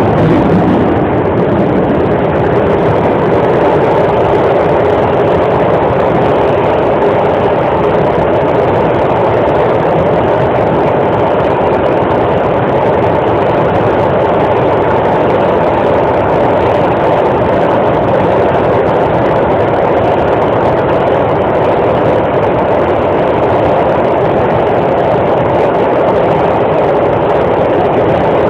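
Steady running noise inside the car of an Alstom Metropolis C751A metro train travelling through a tunnel, wheels on rail and the train's running gear as one even rumble and hiss.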